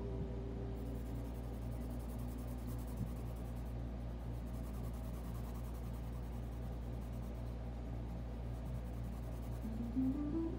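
Graphite pencil scratching across sketchbook paper in shading strokes, over a steady low hum. A few rising music notes come in near the end.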